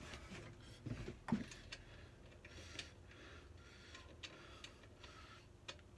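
Faint, scattered light clicks and taps of hands working the spindle nut and buffing wheel of a bench polisher, with a couple of slightly louder knocks about a second in.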